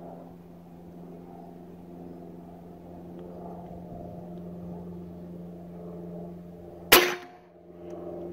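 A Benjamin Bulldog .357 big-bore PCP air rifle fires once, about seven seconds in, with a single sharp, loud report. A steady low hum runs underneath.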